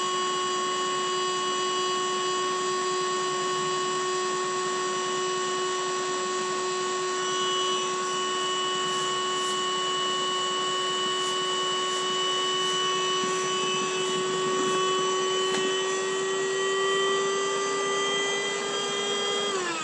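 DeWalt 20V Max inflator running steadily on its high-volume setting, blowing air into an inflatable kayak chamber. Over the last few seconds its pitch rises slightly as the tone of the airflow changes, which marks the chamber at about 30% full. Just before the end it is switched off and winds down quickly.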